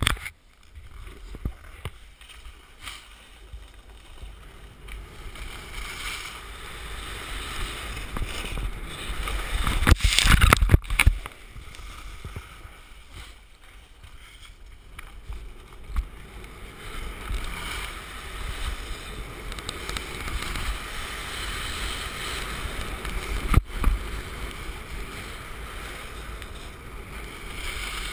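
Skiing or snowboarding down a groomed piste: the snow-sport gear's base and edges scraping over packed snow, with wind rushing on the action camera's microphone. The rush swells and fades with the turns and is loudest in a surge about ten seconds in.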